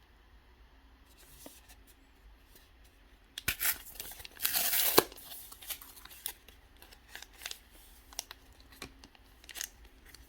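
A Pokémon booster pack's foil wrapper being torn open: a few crinkles about three and a half seconds in, a loud tear lasting under a second, then scattered crinkles and rustles of the wrapper and cards.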